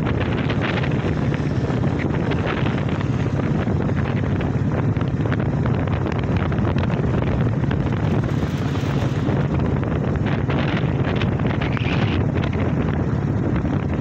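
Steady wind rush buffeting the microphone of a moving motorcycle, with the low noise of the bike and its tyres on the road underneath.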